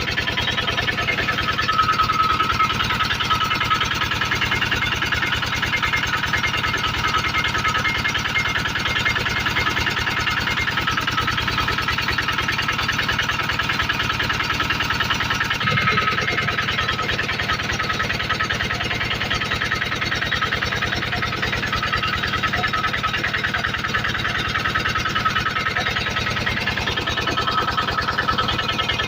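Generator engine running steadily with an even, fast firing pulse, with a brief shift in tone about halfway through.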